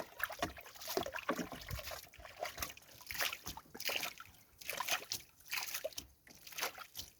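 Water sloshing and splashing in short, irregular bursts.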